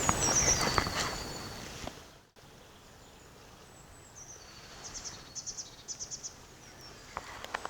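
Woodland birdsong picked up by a shotgun microphone: high, thin calls, including short runs of rapid repeated notes and a few downward-gliding notes, over faint outdoor ambience. There are a few light clicks in the first couple of seconds, and the sound drops out briefly a little over two seconds in.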